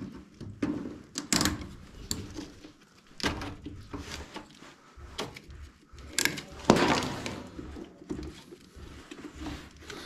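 Knocks, clicks and rattles of pliers and hands working loose the condensate trap and drain hose fittings of a high-efficiency gas furnace. There are about a dozen separate knocks, the loudest about seven seconds in.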